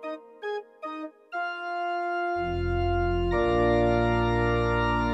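Organ music: a few short separate notes, then a held chord that fills out as deep bass notes come in about two seconds in and more notes join about a second later.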